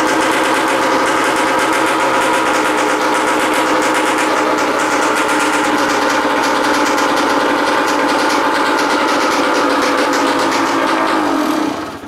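Kawasaki KDX200 single-cylinder two-stroke dirt bike engine, freshly kick-started, idling steadily through its expansion pipe with the silencer removed, then shut off near the end.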